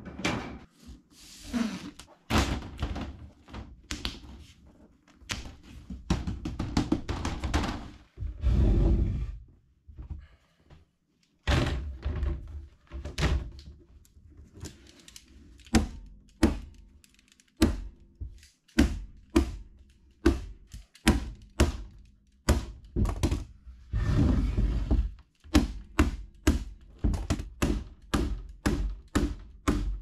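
Hammer knocking on a wooden frame fitted with wire mesh, many sharp blows, coming about two a second near the end, with a few stretches of rustling noise between them.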